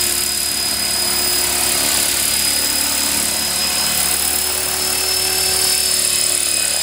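Blade 400 electric RC helicopter running close to the ground as it comes in and sets down: a steady high whine from the motor and spinning rotor, dipping slightly in pitch near the end.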